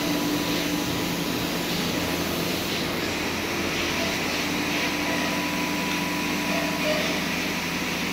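Steady machinery hum and hiss with a few constant low tones, one of which fades about three seconds in.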